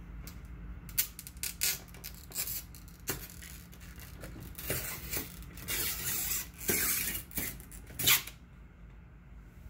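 Utility knife blade cutting excess screen-printing mesh along the edge of an aluminium frame: a run of short, irregular scraping strokes, with longer cuts about five to seven seconds in and the loudest stroke about eight seconds in.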